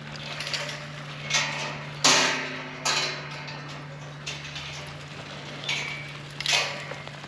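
Footsteps walking at a slow pace, about seven unevenly spaced steps, the loudest about two seconds in, over a steady low hum.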